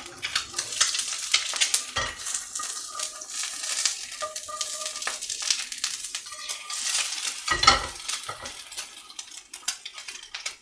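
An egg sizzling and crackling in oil in a ceramic-coated frying pan, with a wooden spatula scraping under it as it is turned. There is a dull knock about two seconds in and a louder one past the middle.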